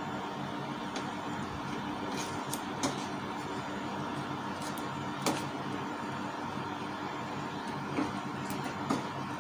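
A few small, sharp plastic clicks and taps, scattered and irregular, as hands handle a clear waste-ink tube and a small black plastic part at the side of an inkjet printer. A steady low hum runs underneath.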